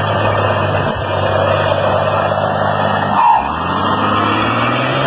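Heavy machine's diesel engine running steadily, with a brief dip and shift in its pitch a little over three seconds in and a short squeal at that moment.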